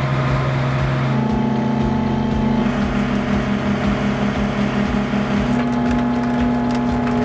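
Flatbed tow truck's engine running steadily while its winch cable pulls the wrecked car up the tilted bed.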